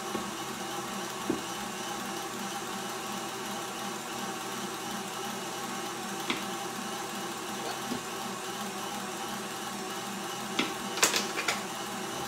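Electric tilt-head stand mixer running steadily, its beater turning in thick brownie batter while flour is added. A few sharp clicks near the end.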